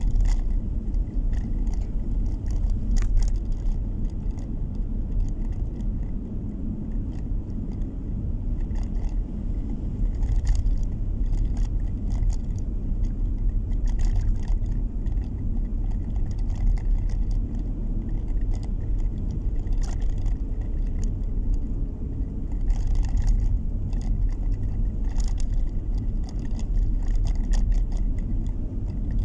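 Car driving along a narrow asphalt road, heard from inside the cabin: a steady low rumble of engine and tyre noise, with scattered light clicks and rattles.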